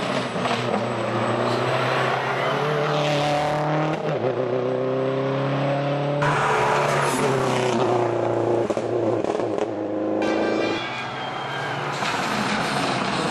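Subaru Impreza WRX STi rally car's turbocharged flat-four engine at full effort on a stage, its pitch repeatedly climbing and dropping as it is driven hard through the gears. The sound changes abruptly about six and ten seconds in.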